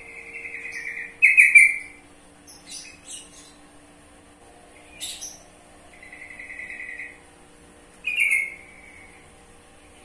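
Yellow-vented bulbul (trucukan) calling: repeated bouts of bubbly, chattering notes, each about a second long. The loudest bursts come about a second in and again about eight seconds in, with a few short, sharp chips in between.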